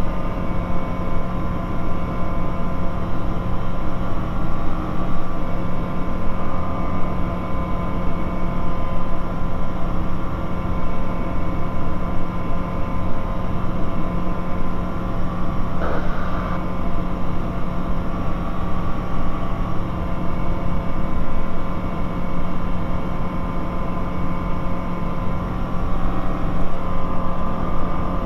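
Bristell light aircraft's piston engine and propeller droning steadily in the cockpit during the climb after takeoff.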